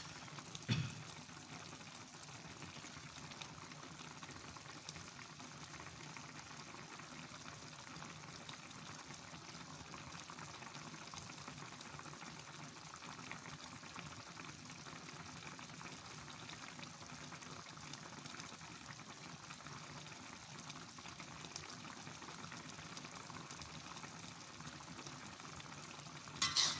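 Sautéed mushrooms in a little water simmering steadily in a pan on the stove, with a brief knock about a second in and a few clatters near the end.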